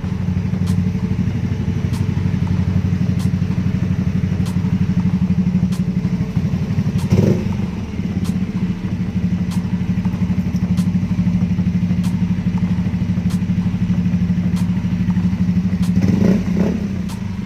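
Yamaha Mio i125 scooter's single-cylinder engine idling steadily through an aftermarket Chicken Pipe V3 exhaust with its baffle gutted, with a short throttle blip about seven seconds in and another near the end.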